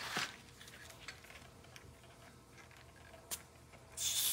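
A few faint handling clicks, then about four seconds in a loud hiss of air escaping from a bicycle tyre's valve as it is pressed to let pressure out.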